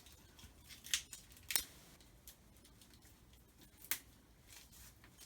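Packaging being handled: three short, sharp crinkles, about one and a half seconds in and again near four seconds, over faint room noise.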